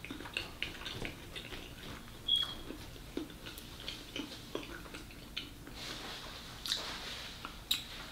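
Close-miked chewing and mouth sounds: irregular soft clicks and lip smacks of someone eating fried rice and shrimp, with wet finger-licking smacks later on and a brief high squeak about two seconds in.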